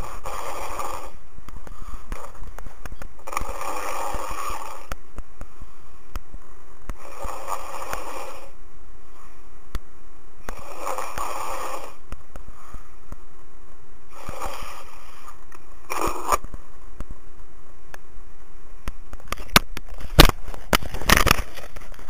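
A person snoring heavily, heard over a phone line: a rasping snore about every three and a half seconds over a steady line hiss, with one shorter, sharper snore about two-thirds of the way in. A run of sharp clicks comes near the end.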